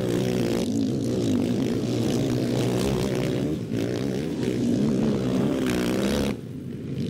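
Sidecarcross racing outfits' motocross engines revving on the track, their pitch rising and falling with the throttle. The sound drops off suddenly about six seconds in.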